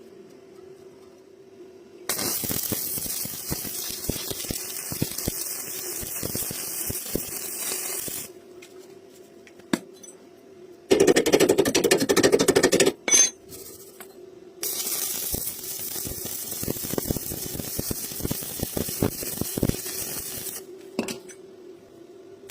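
Electric arc welding on iron bars: two runs of steady crackling, frying hiss, each about six seconds long, over a faint steady hum. Between the runs comes a louder burst of about two seconds of rapid scraping or tapping on the metal.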